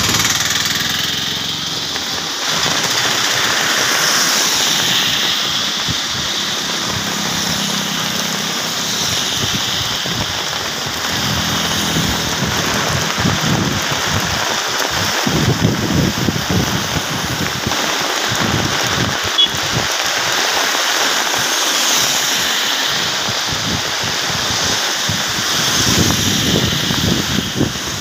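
Heavy monsoon rain pouring down onto a wet road, a steady hiss, with passing traffic: tyres swishing through standing water and vehicle engines. A vehicle engine hum is heard through the first half.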